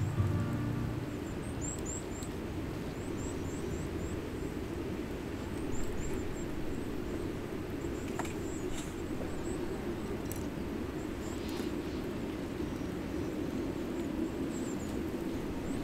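Outdoor ambience: a steady low rumble, with faint high chirps scattered throughout and a few sharp crackles.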